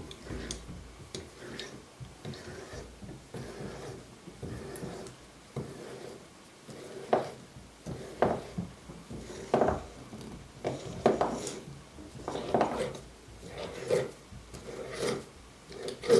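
Metal screw lids being twisted tight onto glass jars by hand: a series of short scraping turns, a few faint ones at first, then about one every second or so in the second half.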